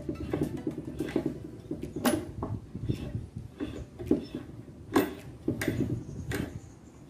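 Homemade bench clamp being tightened: bent threaded-rod handles turned through their nuts, giving irregular metal clicks and knocks against a wooden jaw, with a low rattle between them.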